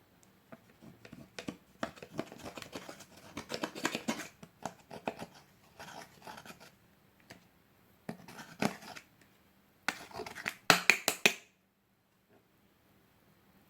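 Close-up crackling, clicking and scratching from hands working slime and its decorations, in uneven bursts. The loudest burst comes about ten to eleven seconds in and stops abruptly.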